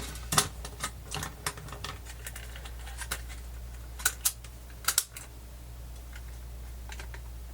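Irregular light clicks and taps from handling the plastic parts of a cassette Walkman, over a steady low hum.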